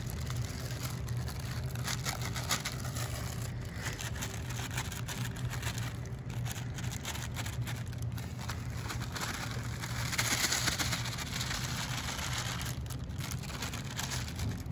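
Dry brownie mix poured from plastic bags into a glass bowl: a steady sandy hiss with crinkling of the plastic, loudest about ten seconds in. A steady low hum runs underneath.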